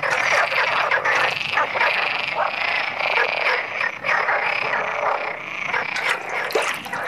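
A chorus of male frogs croaking from a pond, many pulsed calls overlapping without a break. These are spring breeding calls, made by pushing air from the lungs past the vocal cords and swelling the vocal sacs.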